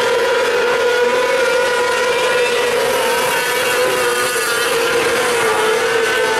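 Several 600cc micro sprint cars' motorcycle engines running hard around a dirt oval: a steady, high-pitched drone from more than one engine, its pitch wavering slightly as they go through the turns.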